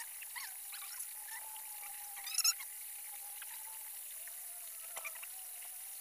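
Small mountain waterfall and shallow rocky stream running with a steady rush, with trickling and small splashes. One brief, louder splash comes about two and a half seconds in.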